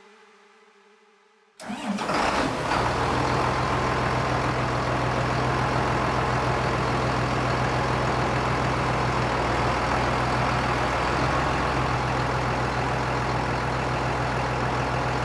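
Music fading out, then an engine starts suddenly about a second and a half in and settles straight into a steady idle.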